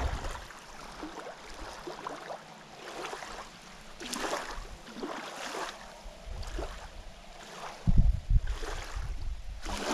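Small waves lapping and splashing at the reservoir's sandy edge. A heavy gust of wind buffets the microphone twice near the end.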